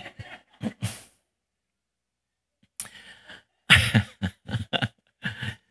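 A man laughing close to a handheld microphone in short bursts, with a break of about a second and a half before a second run of laughter.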